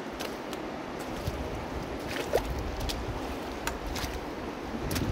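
Shallow river water of the North Fork of the Virgin River running steadily over a rocky bed, with a few short clicks scattered through it.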